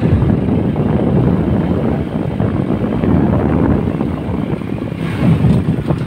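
Motorcycle running on the move, its engine largely covered by wind buffeting the microphone.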